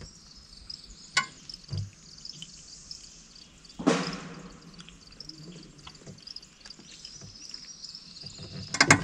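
Steady high-pitched insect chorus droning in the background, with a few light knocks and one louder thump about four seconds in.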